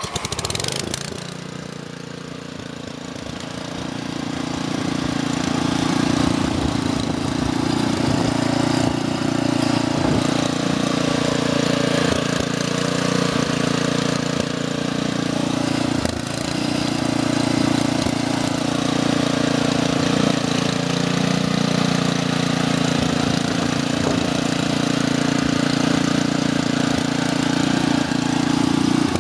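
Small gas engine of an Essick walk-behind vibrating asphalt roller starting up. It builds up over the first few seconds, then runs steadily.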